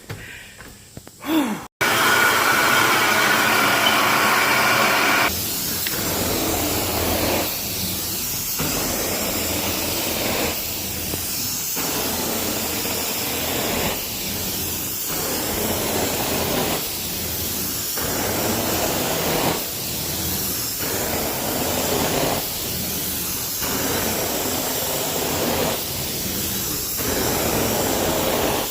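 Carpet-cleaning extraction wand spraying and sucking up water, a steady hiss that starts about two seconds in. After a louder first few seconds it dips and returns every two seconds or so, in time with the wand's strokes across the carpet.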